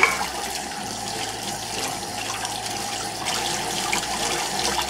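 Kitchen tap running steadily onto peeled shrimp in a stainless steel colander as hands rub the salt off them under the stream. A short knock right at the start.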